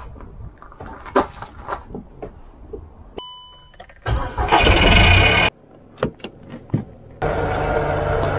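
A motor vehicle's engine, heard in short stretches that start and cut off abruptly, after scattered clicks and a short beep. The loudest stretch comes about halfway through.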